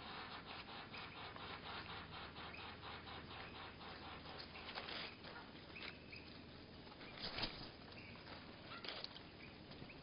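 Birds at a seed feeder, slowed to a third of normal speed: a rapid run of about five soft taps or flutters a second for the first half, then scattered short chirps and a few sharper clicks.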